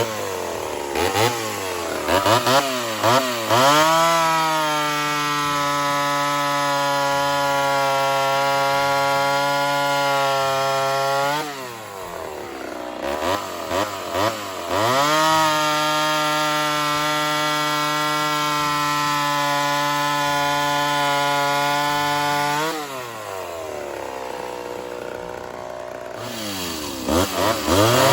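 Ported Homelite Super XL Auto two-stroke chainsaw being blipped, then held at full throttle for two long stretches of about seven seconds each, steady in pitch, with lower running and more throttle blips between and after them. This fits two cuts through wood in a stock-versus-ported performance test.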